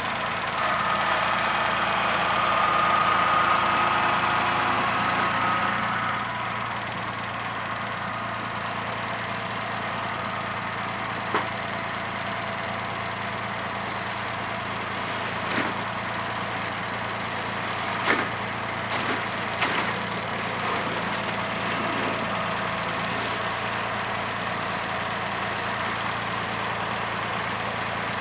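An engine running steadily at idle, a little louder for the first several seconds, with several sharp knocks and clunks scattered over it, a few in quick succession about two-thirds of the way in.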